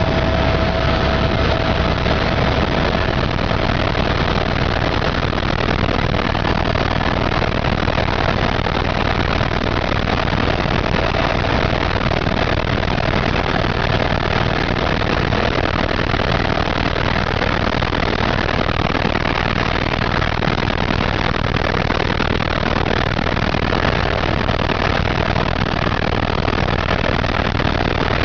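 Helicopter engine and rotor noise, steady and unbroken.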